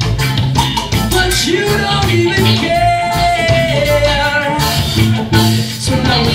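Live reggae band playing, with a male lead singer singing over guitars and drums; he holds one long note about halfway through.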